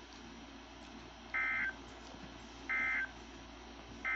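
Three short bursts of Emergency Alert System SAME data tones, a warbling two-tone digital screech, each about a third of a second long and spaced about a second apart. This is the end-of-message code that closes the alert.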